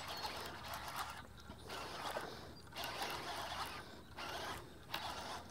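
Baitcasting reel being cranked under load in spurts of about a second each, its gears whirring faintly, as a hooked bass is reeled in.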